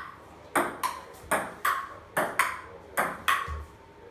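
Table tennis rally: a ping-pong ball clicking off paddles and bouncing on a wooden dining table, about eight sharp hits, each with a short ring.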